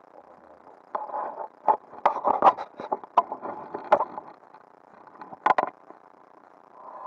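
Irregular rustling, scraping and clicking of hands and clothing rubbing close to the microphone while a small caught fish is handled. About five and a half seconds in comes a brief, sharp small splash as the fish is dropped back into the water.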